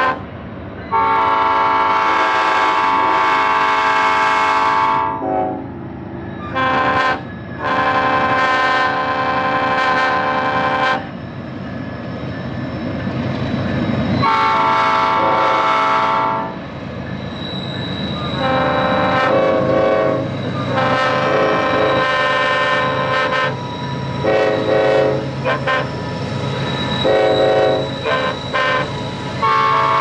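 Union Pacific freight locomotive air horn sounding in long blasts, then a string of short toots in the second half. Under the horn, the locomotives' diesel engines rumble louder as the train draws nearer.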